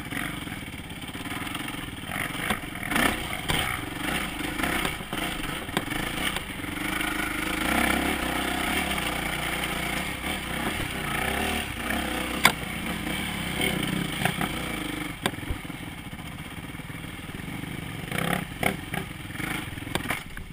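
Dirt bike engine running under the rider, its revs rising and falling as it climbs a rough trail, with rattling from the bike over the ground and a few sharp knocks, the loudest about 12 seconds in.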